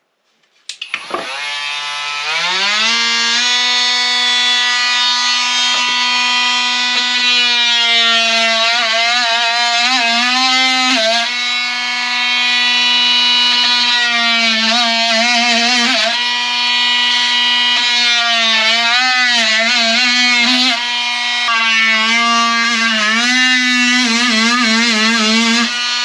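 Skil cordless oscillating multi-tool starting up, its pitch climbing over the first couple of seconds, then running while its toothed blade cuts into 3/4-inch plywood, the pitch wavering and dipping over and over as the blade bites under load.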